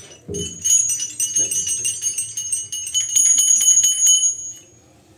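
Small brass temple hand bell shaken rapidly, many quick strikes with a bright steady ringing tone, stopping about four and a half seconds in.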